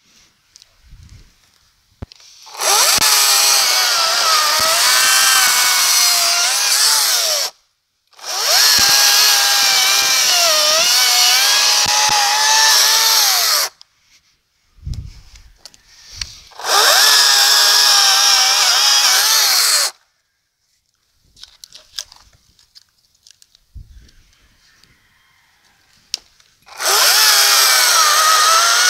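Greenworks 40V cordless electric chainsaw cutting through a log in four runs of a few seconds each. Its motor whine sags and recovers in pitch as the chain bites, and the saw stops cleanly between cuts, leaving short quiet gaps with a few light knocks.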